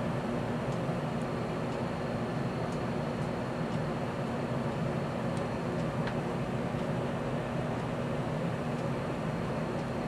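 Steady low background hum and hiss from machinery running in the room, unchanging throughout, with one faint tick about six seconds in.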